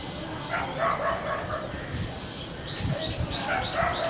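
Repeated short animal calls, becoming a quick run of about five a second in the second half.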